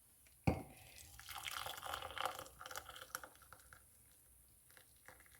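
A knock on a mug, then liquid, most likely hot water, poured into it for about two seconds and tailing off into a few drips.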